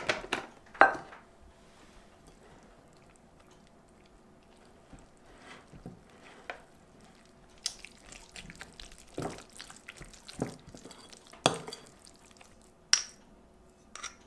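Spoon stirring thick kimchi pancake batter in a glass mixing bowl, with irregular clinks and knocks against the bowl. A few sharp clinks come in the first second, then a quiet stretch of a few seconds before the stirring.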